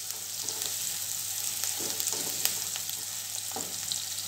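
Chopped onions sizzling in hot oil in a non-stick pan while they sauté, with a spatula stirring them in a few short scraping strokes.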